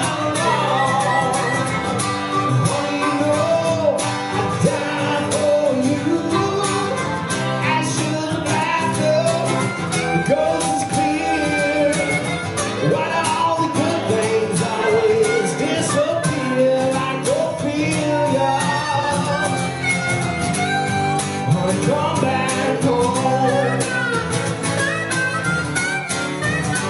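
Live acoustic guitar strumming with a harmonica playing bending, wailing lines over it, in a country or bluegrass style.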